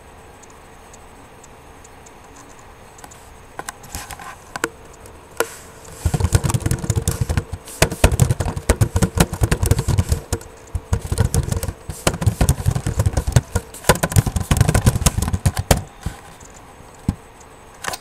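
Rapid, irregular clattering and scraping close to the microphone, starting about three and a half seconds in, coming in clumps and stopping near the end. A faint steady hum lies under it before the clatter starts.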